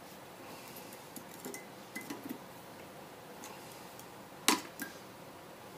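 Hand wrench working on the half shaft flange nuts of a Jaguar independent rear suspension: a few light metallic clicks, then one sharp metal clink about four and a half seconds in, followed by a smaller one.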